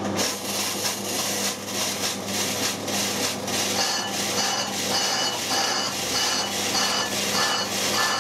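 Metal lathe taking a single cut on a rusty brake drum: the cutting tool scraping across the turning drum with a steady rasping hiss and irregular pulses in it.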